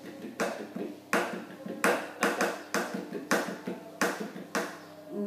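Steel-string acoustic guitar strummed, about nine chord strokes in an uneven rhythm, each left ringing briefly.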